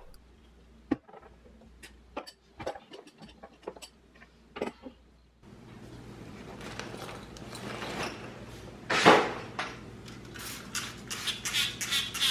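Household items being handled: light clicks and taps at first, then a steady low hiss from about halfway, with a louder knock and a run of small clinks and clicks near the end.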